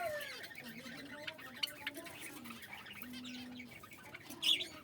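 Kept birds calling in short chirps and squawks, with a louder high call near the end.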